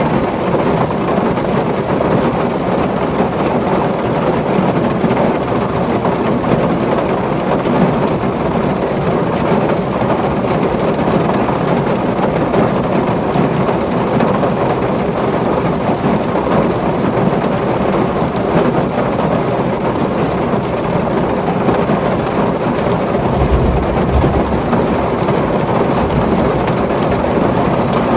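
Heavy rain beating steadily on a tin roof in a thunderstorm, with a brief low rumble of thunder near the end.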